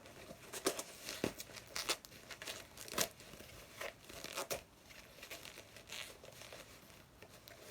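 Packaging being torn open and crumpled by hand: irregular crinkling and tearing with a few louder rips.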